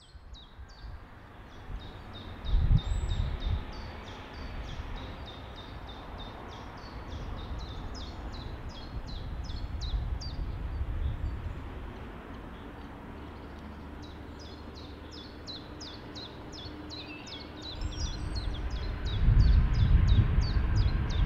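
GB Railfreight Class 66 diesel locomotive, with its EMD two-stroke V12 engine, approaching at the head of an engineering train. Its low engine rumble builds and gets louder over the last few seconds. A small bird sings fast, repeated high chirps throughout, and there is a brief low buffet about three seconds in.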